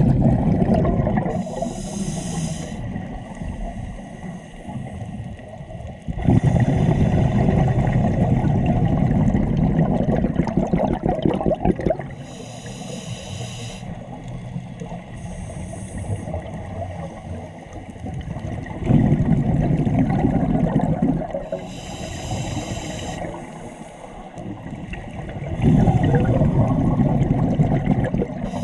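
Scuba diver breathing underwater through a regulator: short hissing inhalations alternate with longer, louder bubbling exhalations, about three breaths in all.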